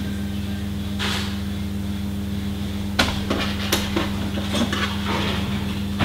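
Hair grips being eased into a hair pad and hair, giving a brief rustle and a few soft clicks over a steady low hum.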